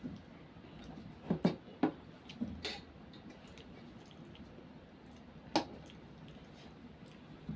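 A steel fork clinking and scraping against a metal plate of noodles: a cluster of sharp clicks in the first three seconds and one more about five and a half seconds in.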